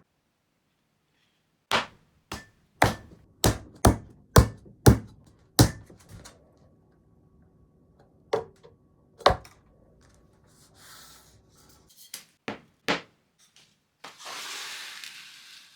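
Wooden jig parts being handled on a workbench: a string of sharp wooden knocks and taps, unevenly spaced and loudest in a quick run a few seconds in, then a brief rubbing, sliding noise near the end.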